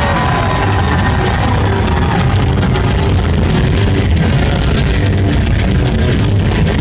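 Death metal band playing live: heavily distorted electric guitars and bass over pounding drums and cymbals, in an instrumental stretch without vocals. It is loud and dense, heaviest in the low end.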